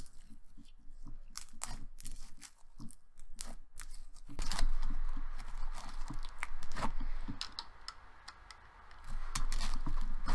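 Clay slime kneaded and stretched by hand as the clay is mixed into a clear base: a run of small sticky clicks and crackles, growing louder and fuller from about four seconds in.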